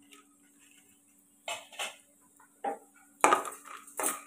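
Homemade lentil-dumpling bori tipped off a steel plate into a kadai: after a quiet start, a scatter of light clinks and taps as the dumplings and plate strike the pan. The clinks grow thicker and louder in the last second.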